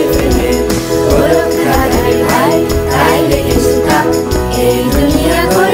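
Music: a song with several voices singing together over instrumental accompaniment, with steady light percussion.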